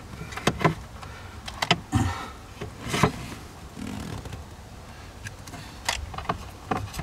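Hands working on a car's dash speaker and its wiring: irregular clicks and knocks of plastic trim, speaker housing and wire connectors being handled. The louder knocks come about half a second, two and three seconds in, and a few more near the end.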